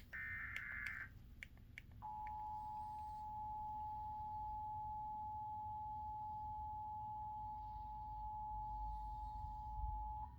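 Emergency Alert System tones: a one-second burst of digital SAME header data tones, then, about a second later, the steady two-tone EAS attention signal, which holds for about eight seconds and cuts off near the end. Together they mark the start of an EAS activation for a severe thunderstorm warning.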